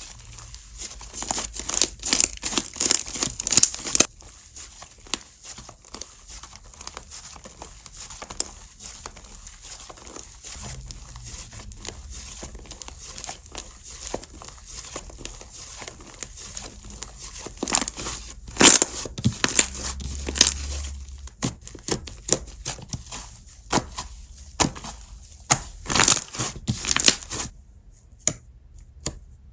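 Hands playing with a slime, stretching, pressing and poking it, with dense runs of small sharp sticky pops and snaps. The pops come loudest in clusters near the start, in the middle and shortly before the end, then die down for the last couple of seconds.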